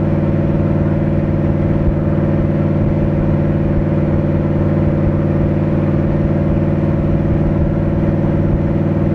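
Dodge Ram 1500's Hemi V8 running at a steady engine speed through an Aero Exhaust moderate-sound muffler, with a loud, even exhaust note that holds one pitch throughout.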